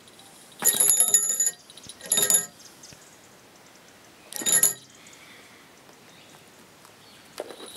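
Young Harris's hawk calling three times, high-pitched ringing calls, the first the longest at nearly a second and the other two shorter.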